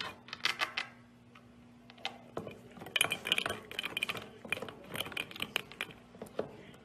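Puppy lapping liquid from a drinking glass: quick wet clicks of tongue and glass, a few at first, then after a short pause dense runs of laps for several seconds.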